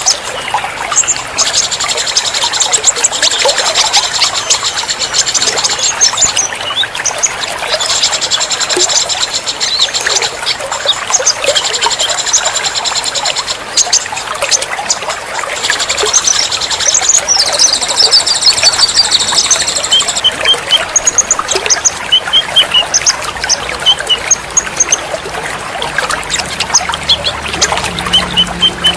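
Several songbirds singing, with long fast high trills in the first two-thirds and shorter scattered chirps after, over a steady trickle of running water.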